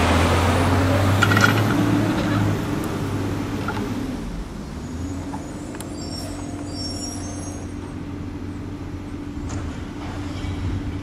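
Heavy vehicle engine running with a steady low hum, loudest in the first two seconds and then settling quieter.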